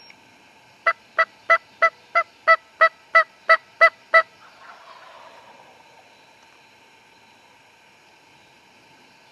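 Turkey yelping: a loud, close series of eleven evenly spaced yelps at about three a second, all on the same pitch. A fainter falling sound trails just after.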